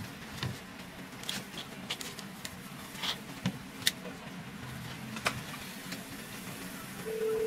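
Scattered light clicks and handling noises of wires being pushed into an ECU connector plug, over a steady low hum. A steady beep lasting under a second sounds about seven seconds in.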